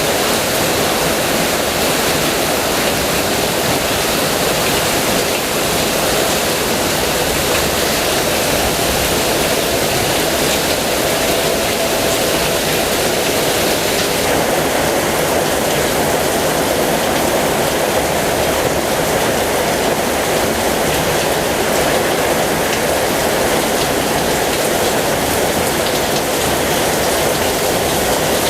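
Heavy rain falling steadily, an even rushing hiss.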